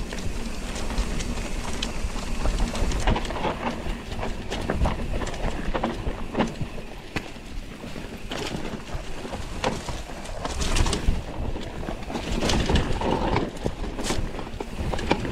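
Mountain bike rolling over a rough, dusty dirt trail: tyres crunching and the bike rattling and knocking over bumps, with wind buffeting the microphone.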